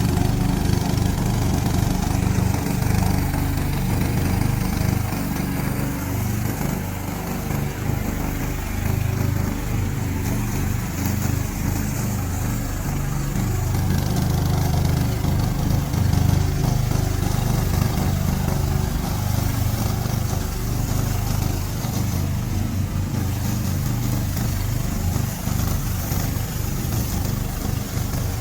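Gasoline engine of a remote-control slope mower running steadily as it mows.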